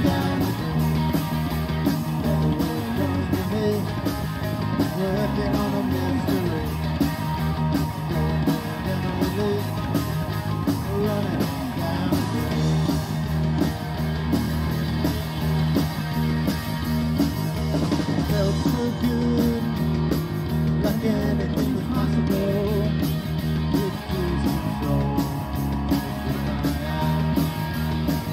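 A live rock band playing through a PA: electric guitars and a drum kit, full and continuous.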